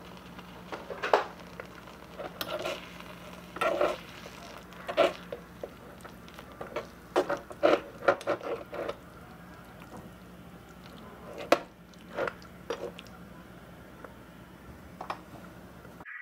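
A small utensil clinking and scraping against a miniature aluminium frying pan as spaghetti is mixed into the sauce, with irregular taps throughout.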